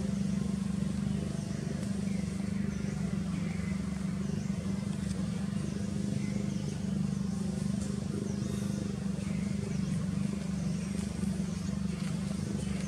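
A steady low mechanical hum, with short high chirps about once a second above it.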